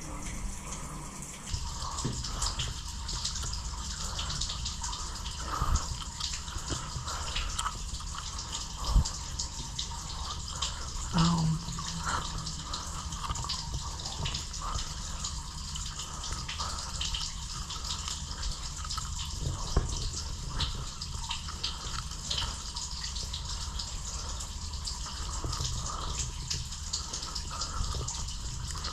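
Water trickling and dripping in a concrete stormwater drain tunnel, with a few louder knocks or splashes about 6, 9 and 11 seconds in.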